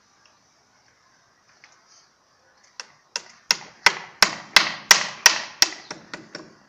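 Hammer blows, about a dozen evenly paced strikes at roughly three a second, starting about three seconds in, each with a short ring, the last few lighter.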